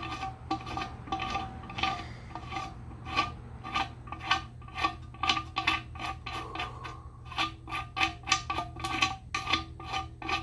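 Ratchet wrench clicking in short runs as bolts are run in, each click ringing briefly.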